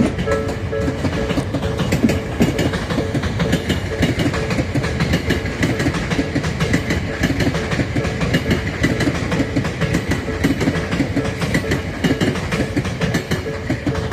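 Tobu Tojo Line electric train passing close by, its wheels clattering rhythmically over the rail joints above a steady rumble.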